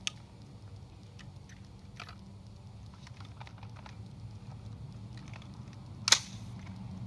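An AR-15 rifle being handled: scattered small clicks of its action being worked, then one sharp metallic clack about six seconds in, as the rifle is readied with an empty primed case.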